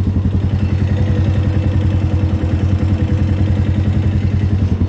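ATV (quad) engine running steadily with an even low pulse, without revving.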